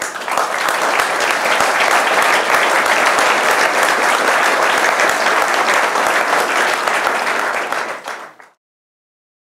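Audience applauding, a dense, steady clapping that cuts off abruptly near the end.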